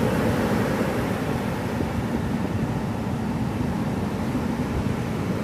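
Ocean surf washing steadily on a beach, with a low rumble of wind on the microphone.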